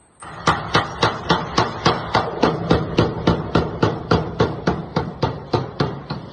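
A 15 kg power hammer striking in a steady, rapid rhythm of about four blows a second over the hum of its drive motor. The blows start suddenly and stop near the end while the motor keeps running.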